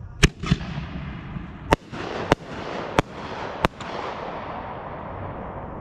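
Aerial fireworks going off: about six sharp bangs at uneven intervals over the first four seconds, with a hissing tail that fades away afterwards.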